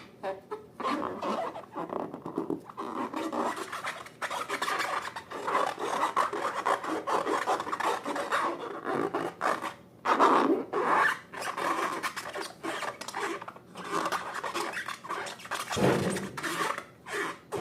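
Slime being worked by hand: continuous, irregular rubbing and squishing strokes, with no music.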